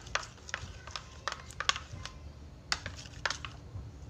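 Metal spoon clicking and tapping against the sides of a bowl while stirring activator into a thick glue-based slime mixture, in irregular sharp clicks.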